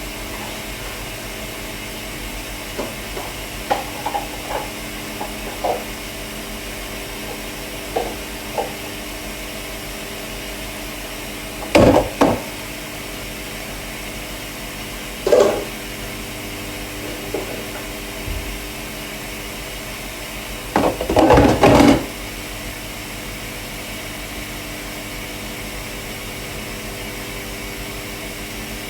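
Dishes and kitchenware handled during washing-up: scattered light clinks and knocks, with louder clattering about twelve seconds in, again at fifteen, and a longer burst about twenty-one seconds in, over a steady hum.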